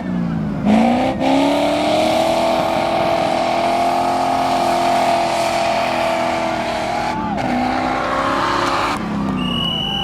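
Off-road 4x4's engine revving hard: it climbs quickly to high revs, holds there for several seconds, dips briefly about seven seconds in, then rises again.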